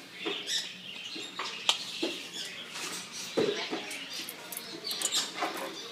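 A pet bird making scattered soft chirps, squeaks and clicks, with one short lower call about three and a half seconds in.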